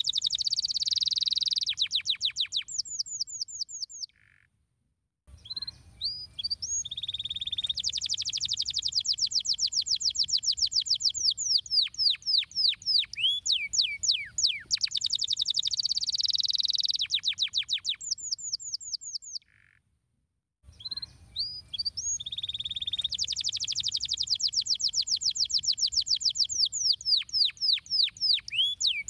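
Domestic canary singing: long rolling phrases of rapid trills and quick downward-sweeping notes, each note repeated many times a second. The song stops twice for about a second.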